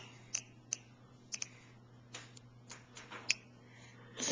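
A toddler grinding his teeth: a string of short, sharp clicks and brief grating scrapes, about ten of them at uneven intervals.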